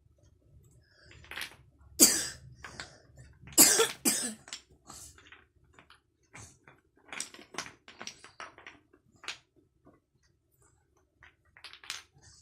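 A five-year-old child with a cold coughing, loud and harsh, three or four times in the first half. Then come light, scattered clicks of wooden toy blocks being handled.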